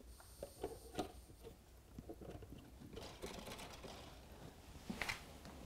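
Faint small clicks and taps of a model diesel locomotive being handled on the track, its plastic body and wheels knocking against the rails. There is a sharper click about a second in, a little cluster of ticks around the middle, and another sharp click near the end.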